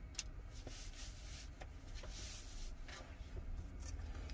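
Faint rubbing and scuffing sounds with a few light clicks, the soft noise of handling on a work surface.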